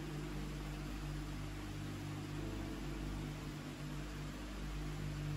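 A steady low hum with an even hiss, unchanging throughout, like a machine running in the room.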